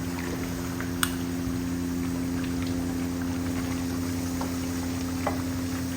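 Duck pieces cooking in a pot, a steady sizzling, bubbling hiss over a continuous low hum, with one sharp click about a second in.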